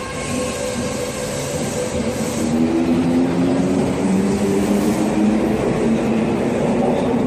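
Subway train pulling out of a station platform: a steady rumble of wheels on rail, joined about two and a half seconds in by a low motor hum as it gathers speed and grows louder.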